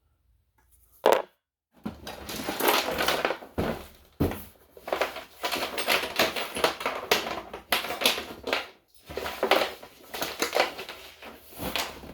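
Hands rummaging through a pile of small vintage sewing machine parts: one short knock about a second in, then continuous irregular clattering, rattling and rustling as the parts are handled.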